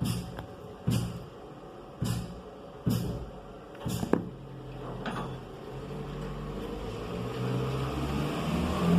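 Five sharp knocks about a second apart, then a motor vehicle's engine hum growing steadily louder.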